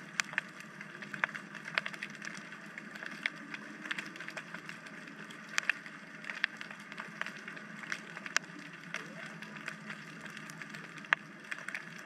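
Underwater ambience picked up by a GoPro during a scuba dive: a steady hiss with irregular sharp clicks and crackles scattered through it.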